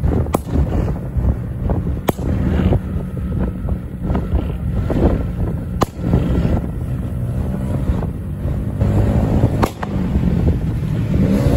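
Motorcycle engines running at road speed, with wind buffeting the microphone. Four sharp cracks are spread through it.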